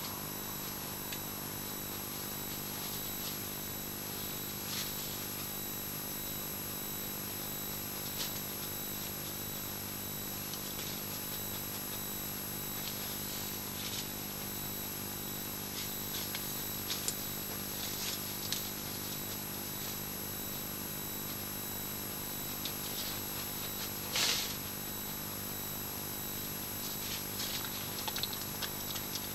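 Steady electrical hum and high whine from an infrared night camera's electronics, with scattered faint ticks and rustles and one louder brief rustle late on.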